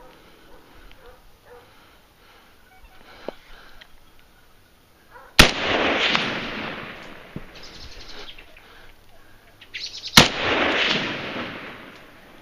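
Hunting gun fired twice, about five seconds apart; each very loud shot is followed by a long echo rolling back off the valley.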